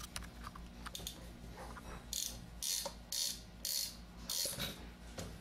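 Reassembled Columbia automatic drywall taper's cam and clutch mechanism ratcheting as it is worked by hand: a few faint ticks, then from about two seconds in short rasping clicks repeating about twice a second.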